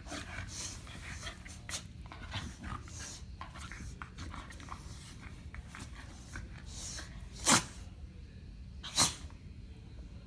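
Two Shetland sheepdogs play-fighting, with snuffling and scuffling throughout and two sharp sneezes near the end, about a second and a half apart. The sneezes are play sneezes, a dog's signal that the rough-housing is friendly.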